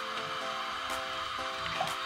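Soft background music with steady held notes.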